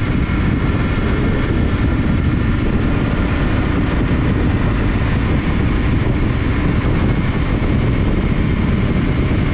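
Yamaha Ténéré 700's parallel-twin engine running steadily at cruising speed in fourth gear, mixed with wind noise.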